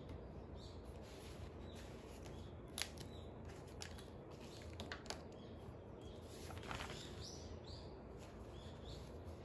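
Faint birds chirping in short, high calls over a steady low background hum, with a few light clicks about three, five and seven seconds in.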